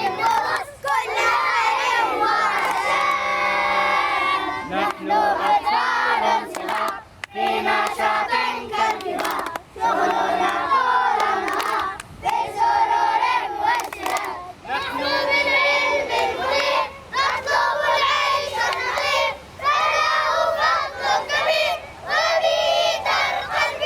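A group of young schoolchildren chanting a nasheed together, singing in phrases a couple of seconds long with brief pauses between them.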